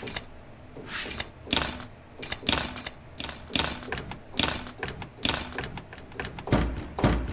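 Chopped samples of home-recorded everyday sounds played back as drum hits in a beat-making program: a quick, uneven string of short clicks and knocks, some with a brief pitched ring, and two deeper thuds near the end.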